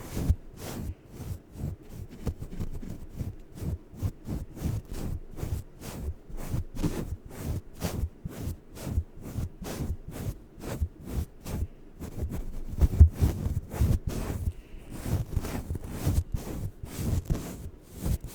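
Rapid, irregular tapping close to a microphone, about three to four sharp strokes a second, with a low thud under each.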